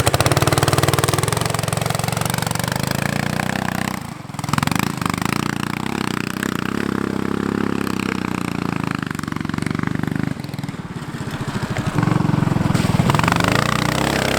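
An off-road kart's 420 engine with a header exhaust, running under load as the kart is driven. The revs and loudness dip briefly about four seconds in, then pick up again, and the engine gets louder again near the end.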